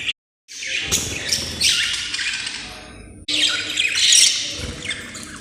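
Budgerigars chattering and squawking, several birds calling over one another, with a brief drop to silence just after the start.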